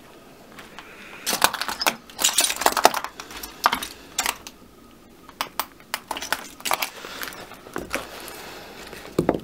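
Clay blocks clinking and knocking against one another as they shift in a pile, in irregular clusters of sharp clicks, busiest in the first few seconds and again near the end.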